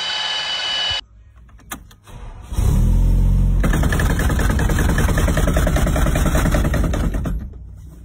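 For about a second, the high whine of a rotary tool working on a bare engine block, which then cuts off. About two and a half seconds in, a car engine starts with a loud low rumble and runs loud and rough with a heavy rattle, the loose steering-column cover shaking. The noise eases near the end.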